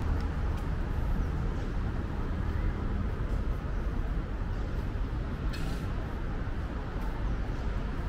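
Steady low rumble of city traffic, with a brief click about five and a half seconds in.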